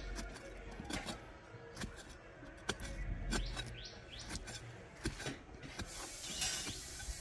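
Scattered knocks and gritty scraping as palmyra sprouts are dug out of the soil, with a longer rushing scrape near the end. Birds chirp briefly a few times.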